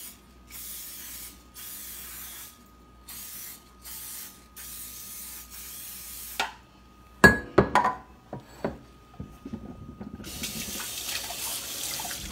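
Aerosol cooking spray hissing in four short bursts into a metal muffin pan, followed by a few sharp knocks as the pan is handled. Near the end a kitchen tap runs steadily over a bowl in the sink.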